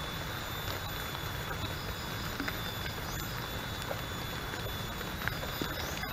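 Rain falling steadily on forest foliage: an even hiss with scattered ticks of drops hitting leaves.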